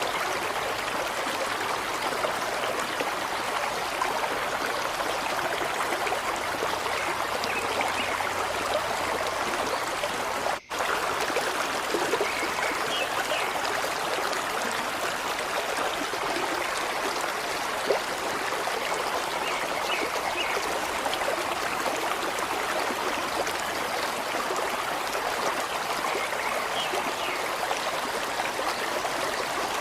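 Steady rush of flowing stream water, cutting out for an instant about a third of the way through.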